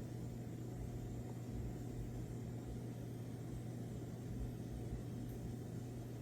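A steady low hum with an even low rushing noise underneath; no distinct snores stand out.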